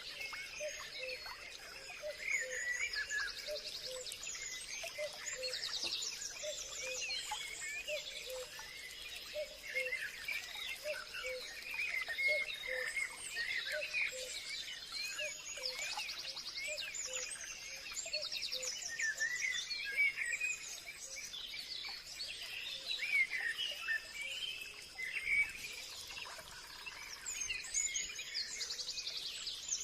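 Forest birds chirping, trilling and singing together in a dense chorus, over a steady high-pitched hum. A low note repeats a little faster than once a second through the first half.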